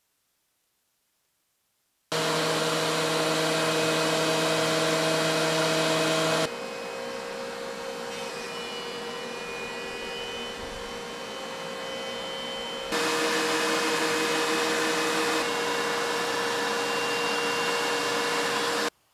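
DeWalt two-speed thickness planer running as boards are fed through it: a loud, steady machine whine with a few constant tones. It starts abruptly about two seconds in, drops to a quieter stretch in the middle, is loud again, and cuts off just before the end.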